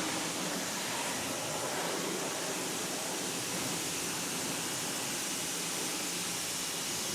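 Pressure washer spraying a steady jet of water into a car's engine bay, an even hiss that holds without a break.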